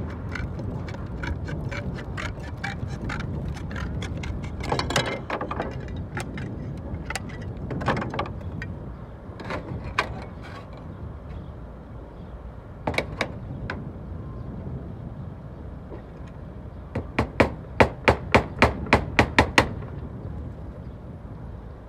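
Slater's hammer working natural roofing slate: quick light taps in the first few seconds as a slate is dressed, a few scattered knocks, then a rapid run of about a dozen sharp hammer blows, roughly four a second, nailing the slate to the chimney.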